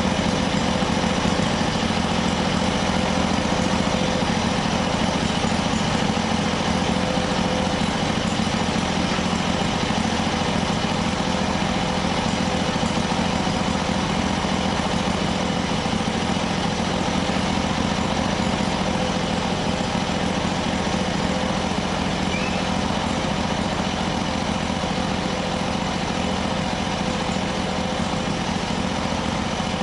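Predator 670 V-twin engine running at a steady speed on a bench test run.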